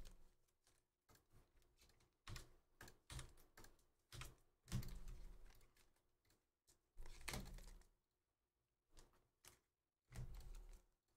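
Faint typing on a computer keyboard: irregular bursts of key clicks and taps separated by short pauses.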